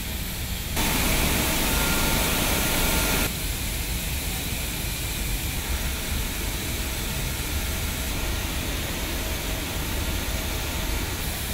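Steady refinery process-plant noise: an even hiss over a low rumble, with a few faint steady tones. About a second in, the hiss turns louder and brighter for about two and a half seconds, then drops back.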